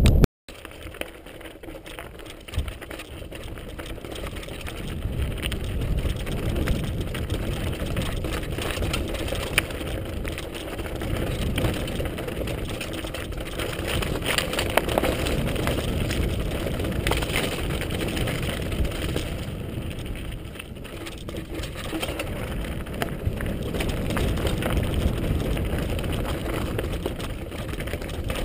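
Mountain bike riding down a loose, rocky stone track: tyres crunching over gravel and stones, with the bike rattling and knocking over the bumps. It gets louder over the first few seconds as the descent picks up, then runs on steadily.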